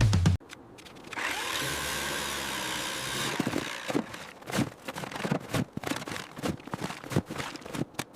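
A power tool whirs steadily for about two seconds, then stops, followed by a run of irregular sharp knocks and clicks, like work on the piece.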